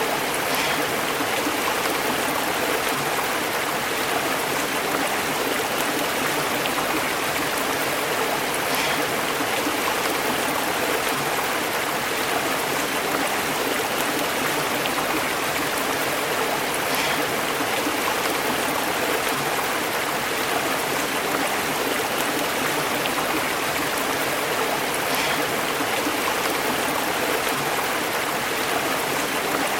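Stream burbling over rocks: a steady rush of flowing water.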